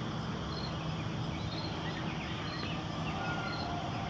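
Rural outdoor ambience: a steady background hum and hiss, with a faint high chirp repeating about once a second.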